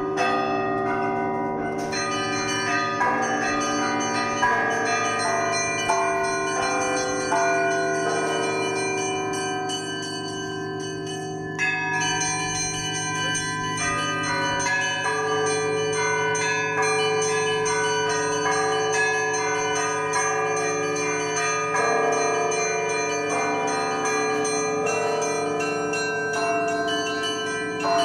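Church bells ringing: many bells of different pitches struck again and again, their strokes overlapping and ringing on, with a sharp high stroke about halfway through.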